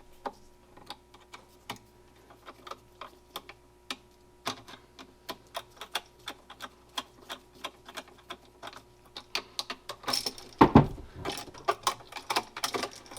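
Irregular light clicks and taps of hands working stiff electrical wires into a push-in connector at an outlet box, growing busier near the end, with one louder knock about ten and a half seconds in.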